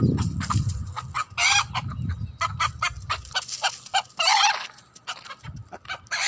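Hens clucking in quick short notes, with three longer, higher calls spread through. A low rumble underneath fades out about halfway.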